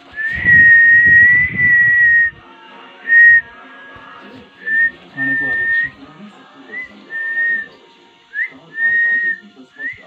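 A person whistling a run of notes at one high pitch: one long held note of about two seconds, then a string of shorter notes, several opening with a quick upward slide. A low rumble runs under the first long note.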